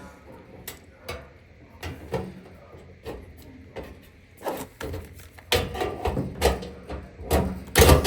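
Hands and tools working on the metal parts of a dryer: scattered clicks and knocks, then from about four and a half seconds in a busier, louder run of clattering, rubbing and scraping.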